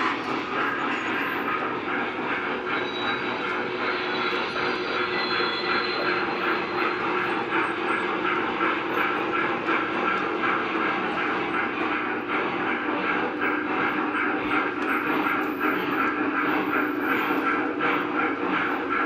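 Lionel O-gauge model trains running on the layout's track: a steady whirring of motors and wheels on the rails, with a fast rhythmic clicking that grows more distinct in the second half.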